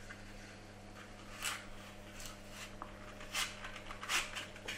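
Peeled parsnip sliced on a handheld plastic mandoline: about five short scraping strokes at uneven intervals, each one a thin slice shaved off as the parsnip slides across the blade. A faint steady low hum runs underneath.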